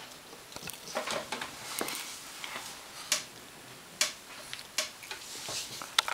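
English bulldog puppy chewing and gnawing on a sneaker: irregular clicks and short rustling scrapes of teeth on the shoe, with a sharper click about six seconds in.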